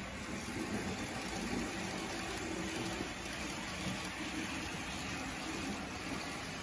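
HO scale model freight train of boxcars rolling steadily along the track, its wheels running on the rails with a continuous, even rolling sound.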